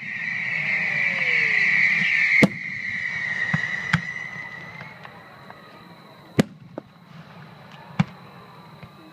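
Consumer fireworks going off: a loud hiss breaks off with a sharp bang about two and a half seconds in and then fades away, followed by single bangs a couple of seconds apart.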